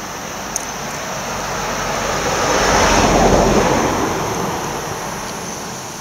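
A motor vehicle passing on the road: a rushing noise that swells to a peak about halfway through, then fades away.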